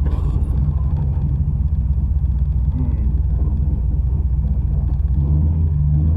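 1985 Dodge D150's 408 stroker V8 running steadily under way, a constant low drone.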